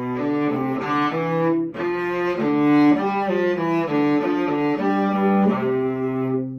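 A cello bowed through a run of changing notes, the harmony part of a cello duet, ending on a held low note that fades away near the end.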